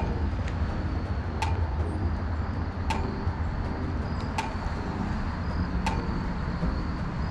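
Rod and reel retrieving a soft-plastic lure: a sharp click about every second and a half over a steady low rumble.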